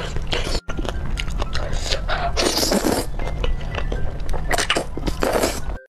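A person slurping and chewing thick noodles in a wet spicy sauce, with one long, loud slurp about halfway through, over background music.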